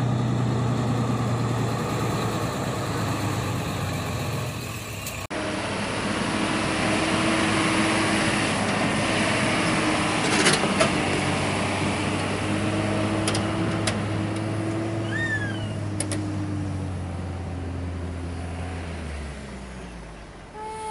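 Diesel dump truck engines running under way: one truck driving, then, after a cut about five seconds in, a loaded dump truck pulling away with a steady engine note that fades out near the end. A few sharp clicks and a couple of short high squeaks occur in the middle.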